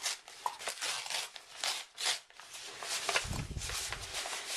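A package being torn open and unwrapped by hand: irregular rustling, crinkling and tearing of the wrapping, with a brief low rumble of handling about three seconds in.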